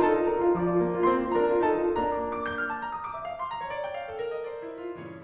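Background music on piano, a gentle melody of single notes, fading out gradually towards the end.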